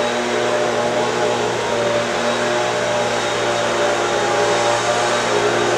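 Steady mechanical whirring noise with a low hum, even throughout.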